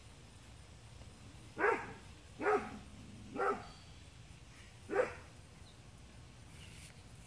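A dog barking, four short barks spaced about a second apart.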